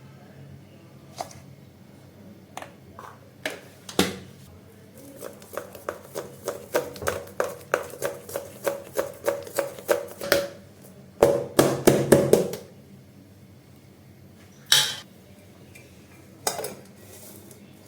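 A metal spoon striking the inside of a ringing steel bowl: a few separate clacks, then a steady run of about three strokes a second, a quick flurry of strokes, and two last single knocks, as when batter is mixed or beaten.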